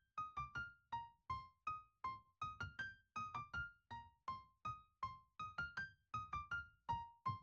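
Quiet background music: a soft piano or electric-piano melody of short, separate notes, about three or four a second.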